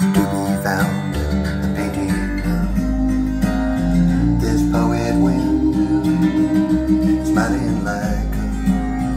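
Recorded acoustic-guitar-led song with bass, in an instrumental passage with a few sliding notes, played back through restored JBL 4341 studio monitor speakers driven by an Eico HF-89 tube amplifier. A deep bass line comes in about a second in.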